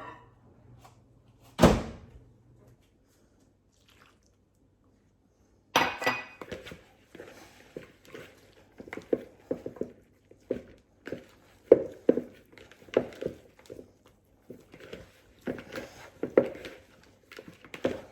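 A clumpy mixture being stirred in a bowl: a single thunk, a short pause, then repeated knocks of the utensil against the bowl, about one to two a second.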